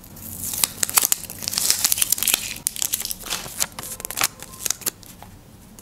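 Paper crinkling and rustling in quick crackles as a hand-drawn paper sticker is handled and peeled from its backing. It thins out near the end.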